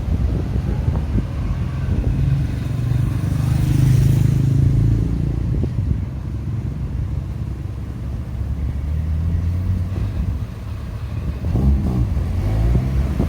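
Road traffic passing, with one vehicle going by close about four seconds in and another pulling away near the end, its engine pitch rising; wind buffets the microphone throughout.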